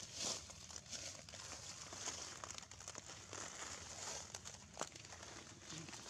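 Soft rustling and crackling in dry leaf litter and twigs, with a few sharp clicks, the clearest about five seconds in.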